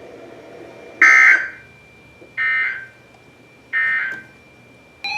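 Emergency Alert System end-of-message data bursts on weather radio: three short, harsh digital buzzes about 1.3 seconds apart, the first the loudest, signalling that the severe thunderstorm warning has ended. A faint steady high tone runs underneath.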